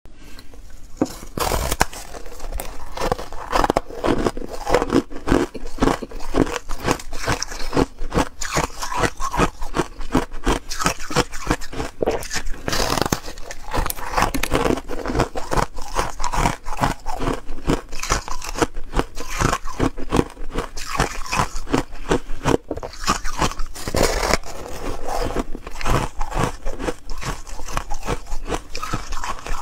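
Biting and chewing a block of frozen foam ice (shaved ice), a dense, continuous run of crisp crunches and crackles that begins about a second and a half in.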